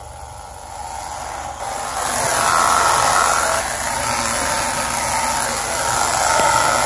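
Front CV axle boot on a 2017 Honda Civic rubbing and screeching as the axle turns in gear, over the steady hum of the running drivetrain; it grows louder about two seconds in. The noise comes from the dry rubber boot itself, not from a tire catching a fender liner.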